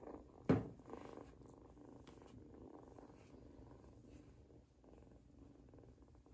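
Kittens purring steadily, with one brief loud rustling thump about half a second in.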